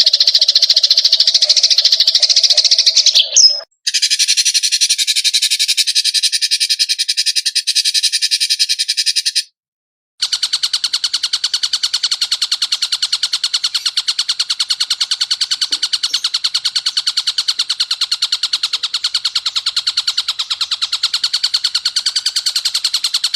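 A rapid, continuous buzzing trill of very fast repeated pulses, pitched high, from an edited animal-song recording. It cuts off abruptly about 3.5 seconds in, resumes in a higher, thinner form, then stops briefly near 10 seconds before a long steady stretch.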